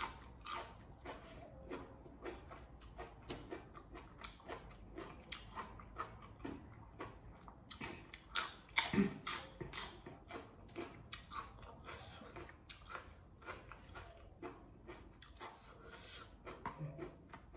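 A person chewing and biting crunchy food close to the microphone: a fast, uneven run of crisp crunches, with louder bites about halfway through.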